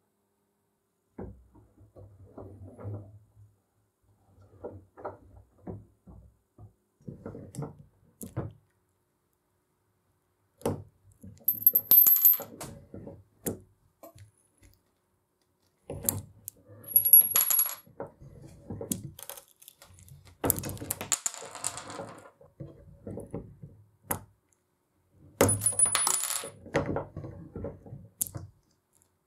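Hand-lever rebar cutter shearing a thin metal rod: soft clunks as the rod is fed and the handle worked, then several loud sharp metallic snaps, three of them followed by a short, very high metallic ring.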